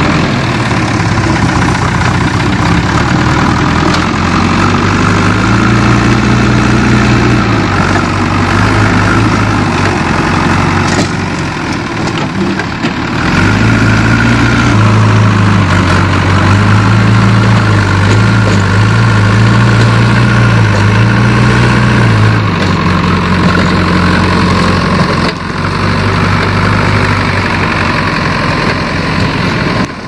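Diesel engine of a JCB 3DX backhoe loader running under load as the front bucket pushes soil. The revs rise and fall, with the engine easing off briefly about a third of the way in, working hardest through the middle, and easing again about three quarters of the way through.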